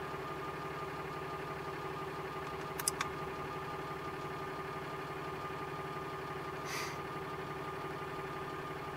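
Ram pickup truck's engine idling steadily. Two sharp clicks come close together about three seconds in, and a short soft hiss near the end.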